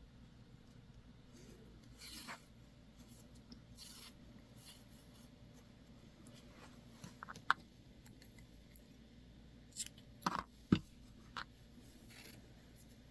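Hands working loose yarn ends into a hand-knitted slipper with a tapestry needle: quiet rubbing and rustling of fuzzy yarn, with a few small sharp clicks and taps, most of them bunched together near the end.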